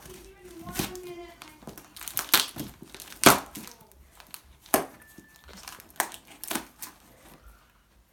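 Wrapping or packaging crinkling in a series of sharp crackles while a box is unpacked.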